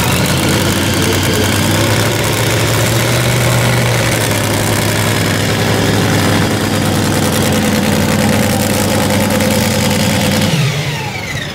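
Modified pulling tractor's engine running loud at high, steady revs, its pitch falling away near the end as it comes off the throttle.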